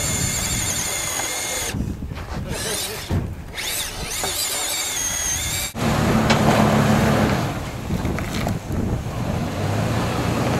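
Radio-controlled rock-crawler truck's electric motor whining, its pitch wavering up and down as it climbs over a rock. Almost six seconds in, it gives way abruptly to a lifted Toyota Land Cruiser's engine running low and steady as it crawls over rocks.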